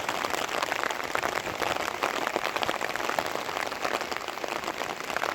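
Heavy rain pattering steadily, a dense, even crackle of drops.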